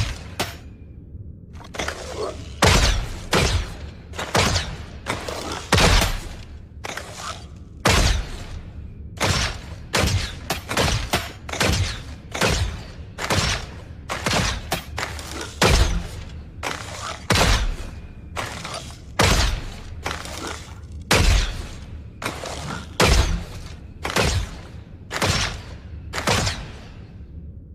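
Compound bow and arrow shots repeated over and over, each a sudden sharp snap with a short fading tail, about one a second.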